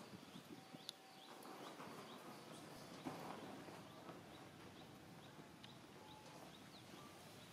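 Quiet outdoor ambience with faint short, high chirps repeating about twice a second, and a few faint clicks.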